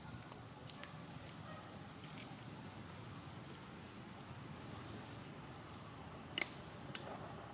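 A steady, high-pitched insect drone over faint outdoor background noise, with two sharp clicks about half a second apart near the end.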